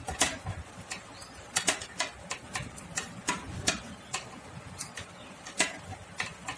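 Knitting needles clicking and tapping together as stitches are worked by hand: sharp, irregular ticks, two or three a second.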